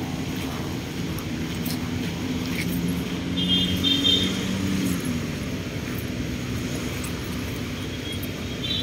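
A steady low engine drone that swells for a couple of seconds midway, with a brief high-pitched chirping at the same time and again near the end.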